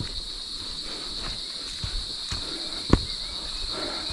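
Steady high-pitched drone of insects in the forest, with footsteps on the trail and a sharper knock about three seconds in.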